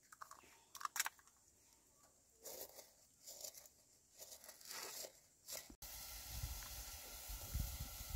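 Crinkling and tearing handling sounds with scattered sharp clicks, then a sudden cut to a steady hiss with low rumbles near the end.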